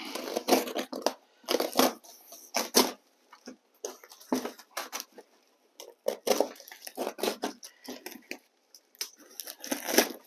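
Cardboard box and brown paper wrapping being handled, torn and crumpled by hand, in irregular bursts of rustling and crackling with short pauses between them.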